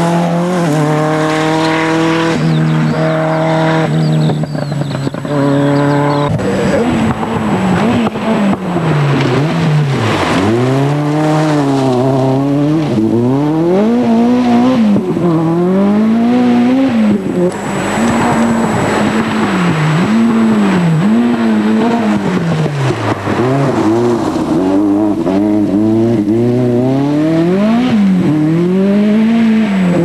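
Ford RS200 Group B rally car's turbocharged four-cylinder engine running hard. It holds a fairly steady high note for the first several seconds, then rises and falls over and over, about every second or two, as the car accelerates, lifts and shifts through the stage.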